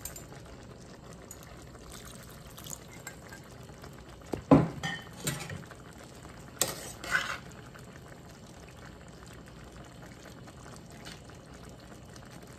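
Chicken stir fry in a stainless steel skillet simmering with a steady, low bubbling as the cornstarch slurry sauce thickens. A metal spoon stirs and scrapes against the pan a few times, loudest about four and a half seconds in.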